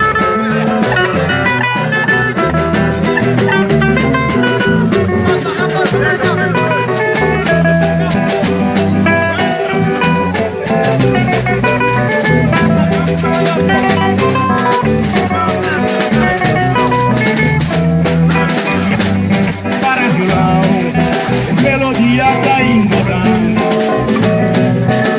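A live Cape Verdean band playing an instrumental passage: guitars and drums over a steady beat, with no singing.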